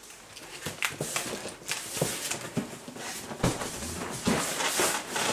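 Scattered light knocks, clicks and rustling, a few every second.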